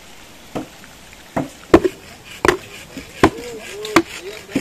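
Repeated chopping blows on green bamboo, about one every three-quarters of a second, each with a short hollow ring.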